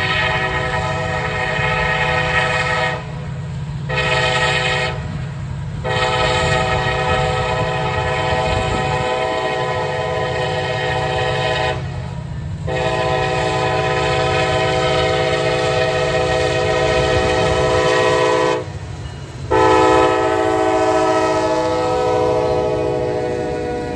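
Norfolk Southern freight locomotive's air horn sounding a series of blasts: one ending about three seconds in, a short one about a second later, then three long ones. Under it runs the steady low rumble of the approaching diesel locomotives.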